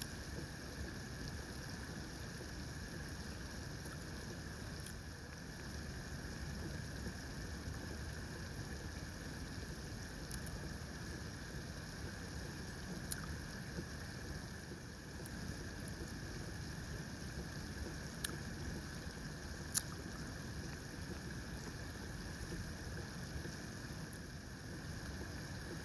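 Steady outdoor background noise, a low rumble with a faint hiss, broken by a few sharp faint clicks scattered through it.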